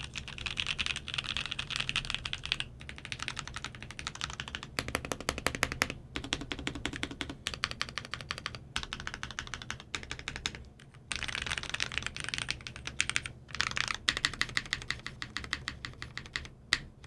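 Fast typing on a Monokei KFE CE mechanical keyboard with a carbon fiber plate, brass weights, unlubed Magic Girl switches and DSA Magic Girl keycaps: a rapid stream of key clacks in bursts, broken by several brief pauses.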